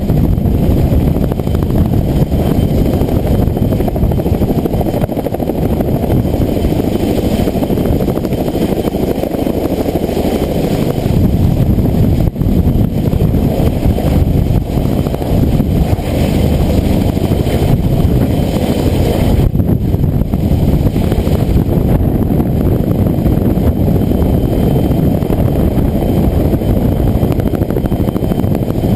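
Boeing Vertol 107-II tandem-rotor helicopter, heard from on board: a loud, steady engine and rotor noise while it hovers over the river filling the Bambi bucket. The low rumble grows heavier about a third of the way in, as the helicopter pulls up and away with the full bucket.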